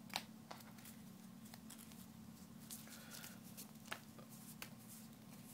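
Faint, scattered taps and clicks of trading cards being laid down one at a time on a table, over a low steady hum.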